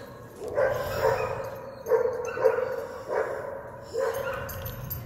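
A dog barking repeatedly, about five barks spaced roughly half a second to a second and a half apart.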